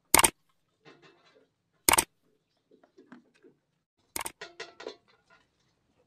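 Three sharp mouse-click sound effects from a like-and-subscribe overlay, about two seconds apart. The last is followed by a short ringing bell jingle. Faint munching of goats eating grain from a steel bowl can be heard between them.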